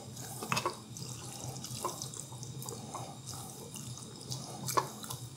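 Thick beef-and-onion beer braise sloshing and bubbling in an enameled cast iron Dutch oven, with a few short clicks about half a second in and near the end.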